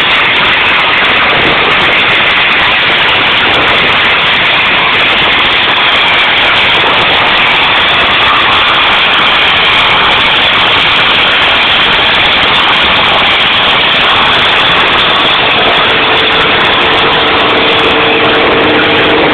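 Tree-branch chipper running loudly and steadily. Near the end, a pair of steady humming tones comes in on top of the noise.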